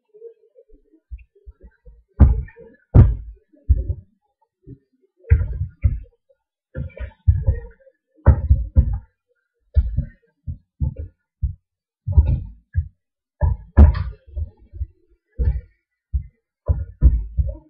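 Hands kneading and turning chicken pieces in a plastic bowl of yogurt marinade: irregular wet squelches and dull thumps, one or two a second, starting about two seconds in.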